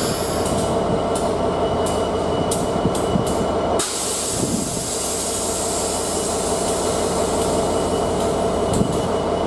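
Class 67 diesel locomotive (EMD 710 two-stroke V12) idling while stationary, a steady engine hum with a few sharp clicks in the first few seconds.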